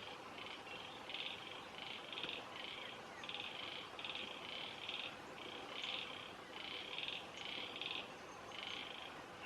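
Small animal calling: a steady run of short buzzy chirps, roughly two a second, over faint outdoor background.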